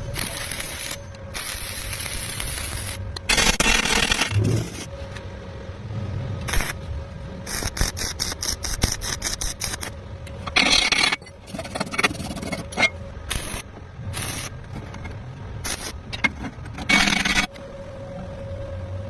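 Metal being worked by hand: irregular scraping, with several louder rasping bursts about a second long and many short ones, over a faint steady hum.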